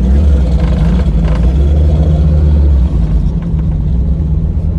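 Turbocharged Honda GSR four-cylinder engine running at low revs, heard from inside the cabin as a steady low drone that eases off a little about three seconds in.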